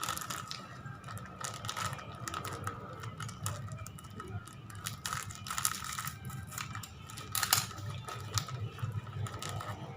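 Spicy crunchy chips (keripik pedas) being chewed close to the microphone: rapid, irregular crunching, with one louder crunch about seven and a half seconds in, over a steady low hum.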